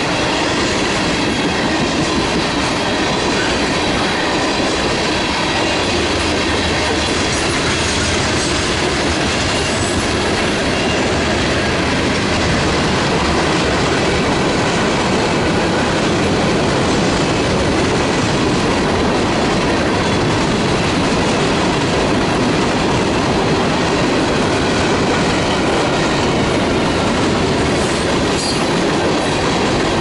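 Freight train cars rolling past close by: tank cars, gondolas and autoracks, their steel wheels running on the rails with a loud, steady noise that never lets up.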